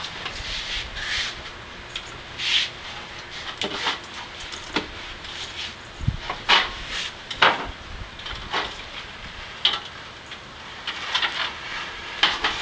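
Irregular knocks, clunks and scrapes of a heavy metal robot body and its wooden sawhorse supports being shifted by hand, with one heavier thump about six seconds in.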